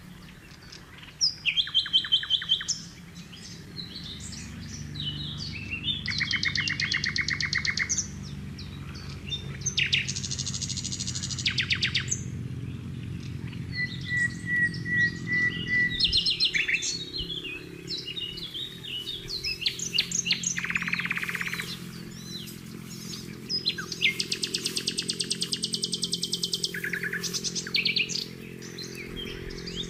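Several wild birds singing and calling, overlapping: fast chattering trills, short chirps, and a brief run of thin, even notes near the middle.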